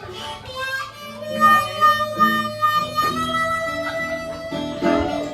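Blues harmonica playing a solo over acoustic guitar accompaniment, holding long notes in the second half.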